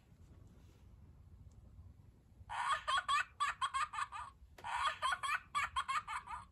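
Plush turtle toy's voice box playing recorded laughter when its shell is squeezed: two bursts of rapid, choppy laughing, each about two seconds long, starting about two and a half seconds in.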